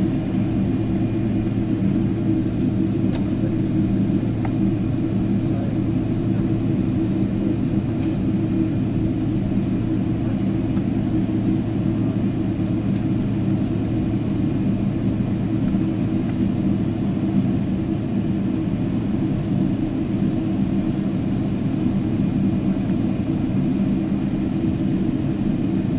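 Steady low cabin rumble inside a jet airliner taxiing after landing, with an even engine hum of several steady low tones that does not change.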